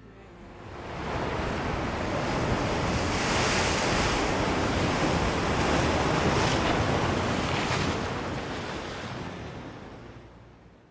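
Ocean waves and wind, a steady rushing noise that fades in over the first two seconds and fades out near the end.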